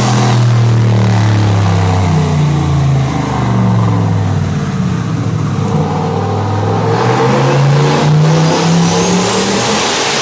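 Turbocharged 5.3-litre LS V8 running on a chassis dyno. The engine note sinks over about five seconds, then climbs again from about seven seconds in, with a thin high whine rising alongside it near the end.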